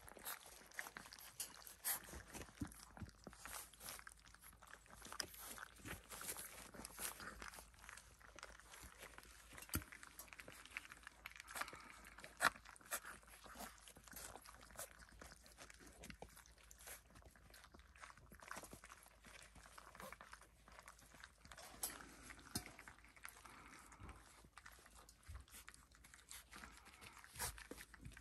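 A litter of puppies eating together from a stainless steel puppy-feeding bowl: faint, irregular chewing and smacking with scattered clicks of mouths and teeth on the metal, one louder click about halfway through.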